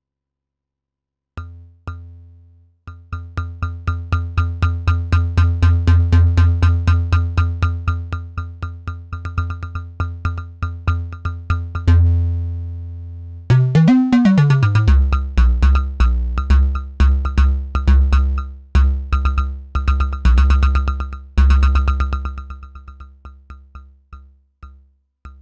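Analog modular synthesizer played through a quad VCA built around CA3080 OTA chips, sounding a fast run of short, bass-heavy repeated notes, each shaped by the VCA's envelope. The notes swell in level over the first few seconds, a pitch swoop comes about halfway, and the notes thin out near the end.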